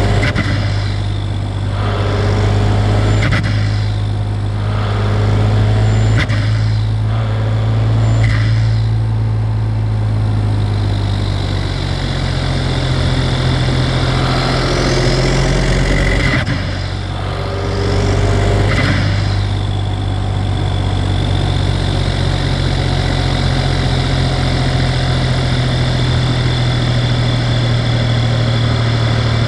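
Audi TDI turbodiesel engine revved in several short bursts, with turbo whistle and flutter as the throttle is let off. Partway through, a high whistle rises over a few seconds. From about two-thirds in, the engine holds steady revs under a steady turbo whistle.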